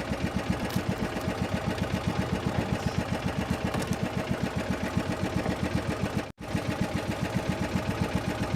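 A small fishing boat's engine running steadily, a fast, even chugging. The sound drops out for an instant about six seconds in.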